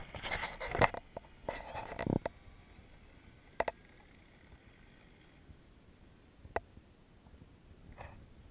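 Knocks and rustling close to the microphone for about the first two seconds, then a faint high whine rising in pitch from an RC floatplane's motor as the model takes off from the water and climbs away, with a few isolated clicks.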